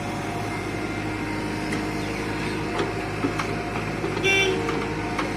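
Tata Hitachi 120H excavator's diesel engine running steadily while loading soil, with a few short clunks and a brief horn toot about four seconds in, the loudest sound.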